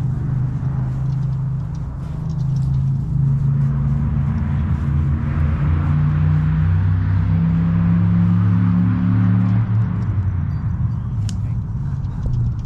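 A low engine drone whose pitch steps up and down; it grows louder through the middle and drops away about ten seconds in.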